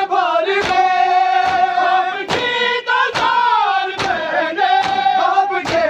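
A Shia nauha sung by a group of men, holding long drawn-out notes of the lament. Sharp hand-on-chest slaps of matam cut through in a steady beat, a little more than one a second.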